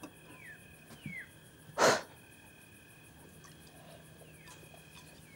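A single short, loud breathy puff of air from a person, like a sharp snort or exhale, about two seconds in. Two faint falling chirps come before it.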